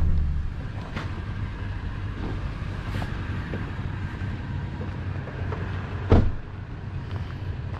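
Toyota Tundra pickup's engine running, loud at first, then a quieter steady low hum from about half a second in. A few brief clicks are heard, with one sharp knock about six seconds in.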